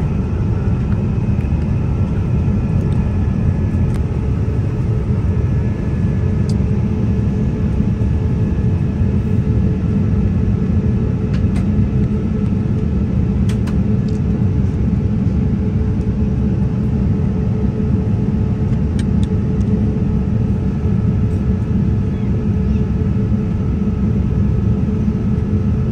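Airbus A350 cabin noise in flight: a steady low rumble of engines and airflow, with faint steady tones above it. A few light clicks are scattered through it.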